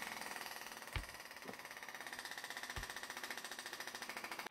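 Frame-straightening bench's hydraulic pump running with a rapid, steady pulse while it pulls on the car's bent front frame rail. A sharp knock comes about a second in, and two fainter knocks follow.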